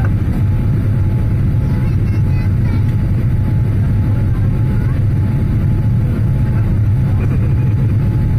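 Cabin noise of a Boeing 787-8 Dreamliner climbing after take-off: a loud, steady, low rumble of engines and airflow heard inside the cabin.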